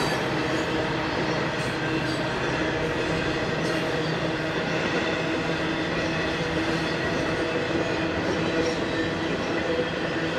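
A long BNSF intermodal freight train of containers and trailers rolling past, with a steady noise of steel wheels running on the rails.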